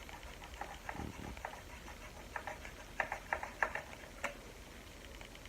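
A knife sawing and prying at hard plastic packaging: a run of irregular sharp clicks and ticks, thickest about three to four seconds in, with a soft thump about a second in.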